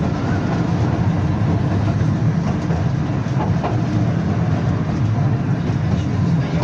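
Belkommunmash BKM-62103 tram under way, heard from inside the car: a steady low running rumble.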